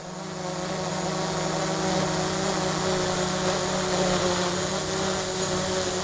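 Steady mechanical droning hum made of several held tones over a hiss, fading in at the start.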